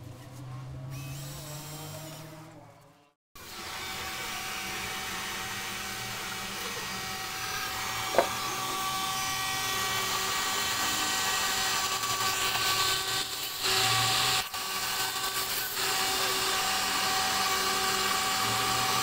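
A cordless drill runs for about three seconds. After a sudden cut, a DIY CNC router's spindle runs steadily with a high whine as its end mill cuts a 3 mm milky-white acrylic sheet, with a sharp click about eight seconds in and a louder stretch around fourteen seconds.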